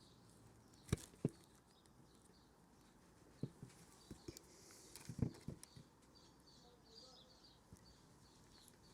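Scattered light clicks and knocks from a plastic hose coupling and its retaining clip being handled and pushed into place, the loudest cluster a little past halfway.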